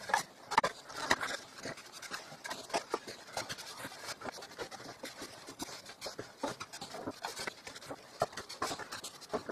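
A paper file folder being creased and folded by hand along score lines on a scoring board: irregular small scratches, crinkles and taps of paper against the board.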